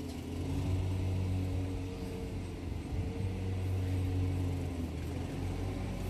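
An engine running steadily at idle: an even low hum with a few held tones.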